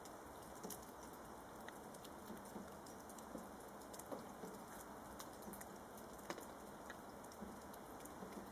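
Red squirrel gnawing a hazelnut: faint, irregular crunching clicks of teeth on nutshell, a few per second, over a steady hiss.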